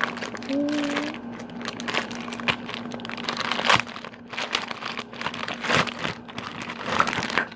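Plastic packaging being crinkled and pulled open, an irregular run of crinkles and sharp crackles.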